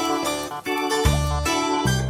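Background music: a bright keyboard tune with bass notes and a steady beat.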